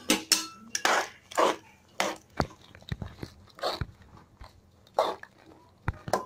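A ladle stirring thick mushroom gravy in a metal pot: irregular wet scrapes and a few sharp knocks against the pot, about one or two a second, as freshly added coconut paste and water are mixed in.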